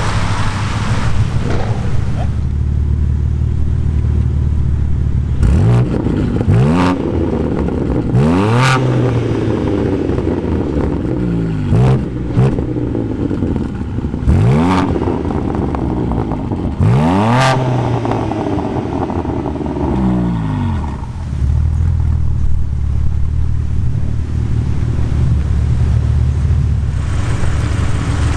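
BMW M3 G80 Competition's twin-turbo inline-six, breathing through an R44 titanium performance exhaust, idling and then revved several times, each rev rising sharply and falling back. It settles back to a steady idle about three quarters of the way in.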